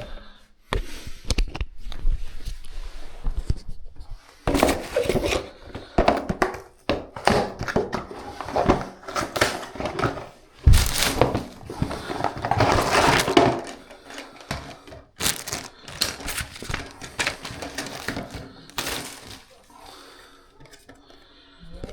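Plastic parts of a new toilet fill valve and its packaging being handled and unpacked: irregular clatter, knocks and crinkling rustles, quieter near the end.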